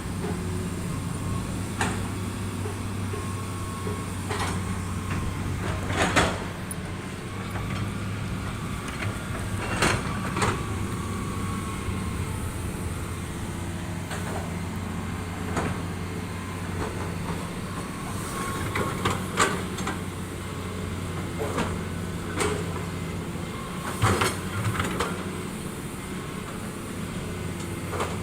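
Heavy diesel earthmoving machinery running steadily, with scattered metallic clanks and knocks from the machine's tracks and steelwork.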